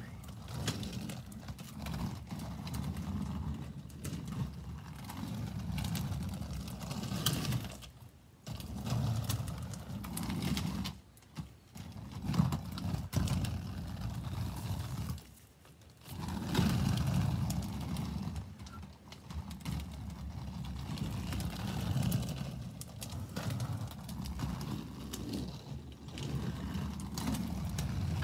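Quad roller skate wheels rolling over rough pavement: a low rumble that rises and falls with the strokes and drops away briefly a few times.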